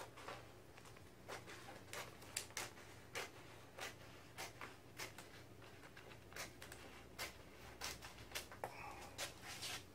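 Faint, irregular crackles and ticks of a vinyl paint stencil being peeled and handled on a freshly spray-painted pinball cabinet, over a steady low hum.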